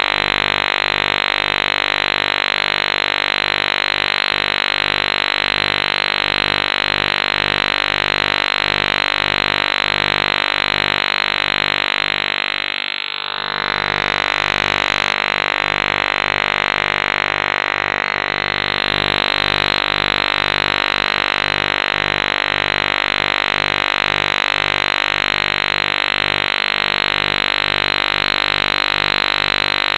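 Harsh, fuzzy electronic drone made of many steady pitches layered together. It briefly dips about 13 seconds in as a sweep rises through it.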